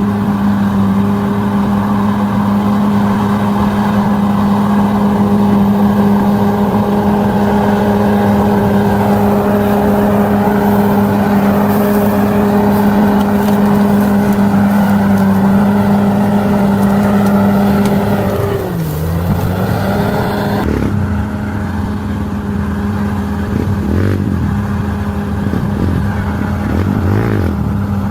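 Bulldozer diesel engine running hard at a steady pitch. Its engine speed sags and picks back up about nineteen seconds in, with smaller rises and falls near the end.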